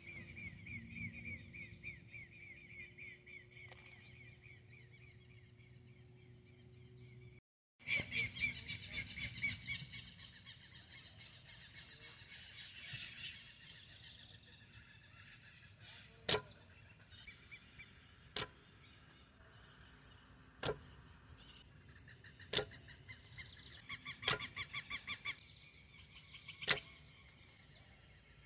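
Birds chirping in quick repeated trills, with a steady low hum underneath during the first part. In the second half a sharp click comes about every two seconds.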